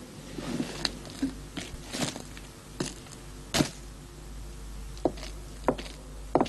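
Irregular footsteps and scuffing knocks of a person moving on a hard street, about ten separate sharp strikes at uneven spacing, over a low steady hum.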